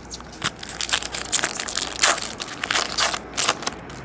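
Foil wrapper of a 2011 Topps Chrome baseball card pack being torn open and crinkled by hand: a dense run of sharp crackling rustles from about half a second in until shortly before the end.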